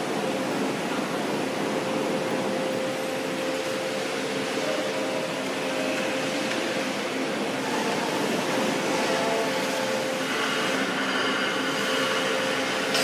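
A 30-litre double planetary mixer for lithium battery material running: a steady mechanical drone with a constant hum. A higher hiss and whine join in about ten seconds in.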